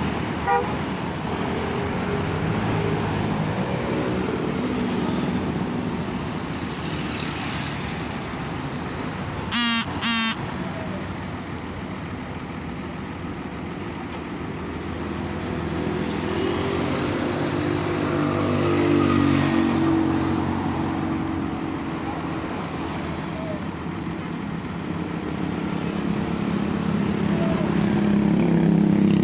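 Bus engines running and passing close by, swelling twice as vehicles approach, with two short horn blasts in quick succession about ten seconds in.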